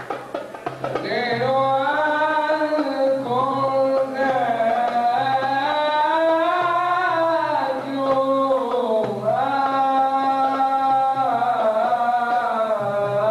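A man singing a slow, ornamented Middle Eastern-style religious chant into a handheld microphone, holding long notes that bend up and down in long phrases.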